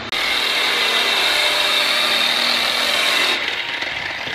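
Handheld rotary polisher running steadily with a whine as it buffs an aluminum semi-truck fuel tank. About three and a half seconds in, the whine briefly turns quieter and duller.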